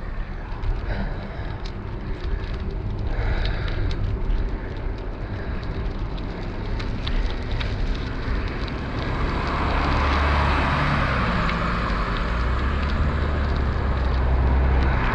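Wind buffeting the microphone of a bike-mounted action camera while riding, with a low rumble and scattered small clicks. In the second half the noise swells as oncoming cars approach, their tyre hiss on the asphalt rising.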